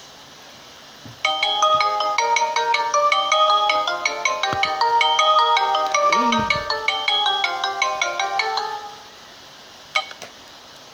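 Alcatel Big Easy (A382g) phone ringtone: a fast melody of many short electronic notes starts about a second in and plays for about eight seconds before fading out. A single click follows near the end.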